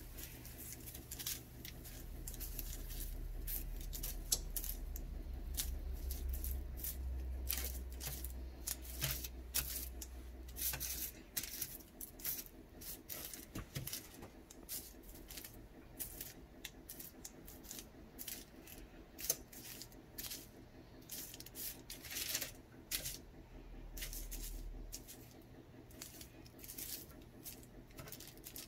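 Metal kitchen tongs clicking and scraping against a foil-lined baking sheet, over and over at an uneven pace, as pieces of breaded chicken are turned one by one halfway through baking. A low hum sits underneath for the first ten seconds or so.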